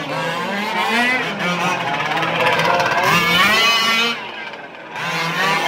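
Several 1:5 scale Losi RC rally cars racing, their small two-stroke petrol engines buzzing and revving up and down in pitch as they drive the track. The engines fade a little after four seconds in, then pick up again.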